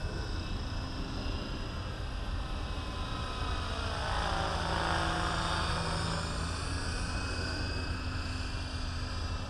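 Align T-Rex 550E electric RC helicopter in flight: a steady whine from its motor and rotor blades. The whine swells louder about four to six seconds in as the helicopter passes closer.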